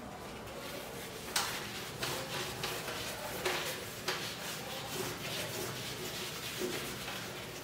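Whiteboard being wiped clean by hand: a run of irregular rubbing strokes across the board's surface.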